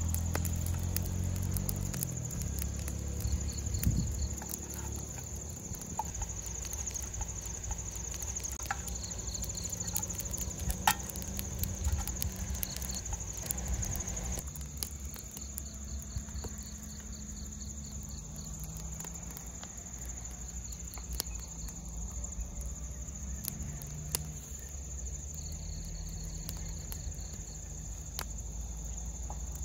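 Crickets chirping steadily in grass at night, a continuous high trill with pulsed chirps over it, with scattered sharp clicks and a low rumble underneath.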